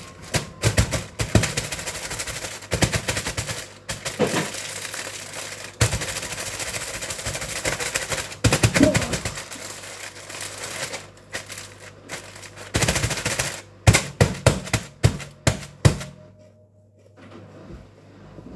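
Spells of dense crackling and rattling handling noise, packed with sharp clicks and knocks, that stop about sixteen seconds in.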